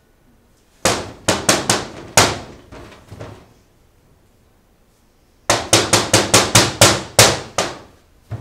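Loud, sharp blows in two quick runs: about half a dozen starting about a second in, then a few fainter ones, then about ten in rapid succession from about five and a half seconds in.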